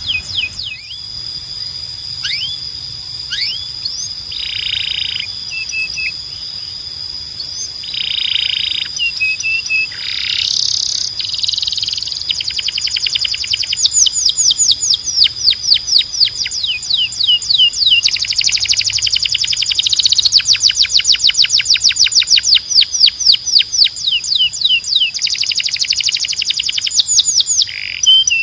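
Canary singing a long song: rapid trills, each a quick run of falling chirps repeated many times a second, broken by short buzzy rolls. A thin, steady high tone runs under it.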